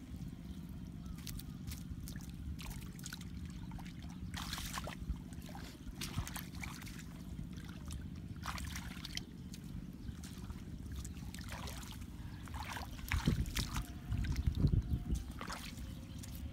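Shallow muddy water sloshing and splashing in scattered bursts as a person wades and works by hand in a flooded ditch, over a steady low rumble. A few louder low thuds come near the end.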